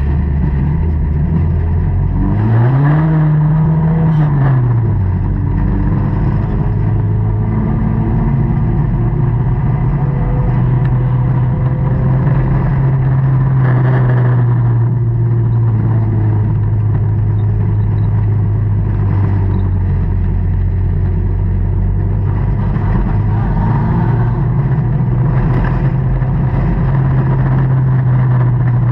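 Dirt-track stock car engine heard from inside the cockpit, running at a steady, even speed. A few seconds in it revs up once and drops back down, then settles into the same steady drone.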